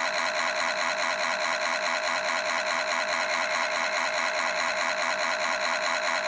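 Car engine sound effect running steadily with a fast, even pulse, heard through a laptop's speakers.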